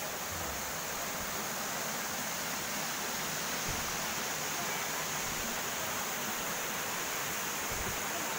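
Steady rushing of flowing water, an even hiss with no distinct splashes.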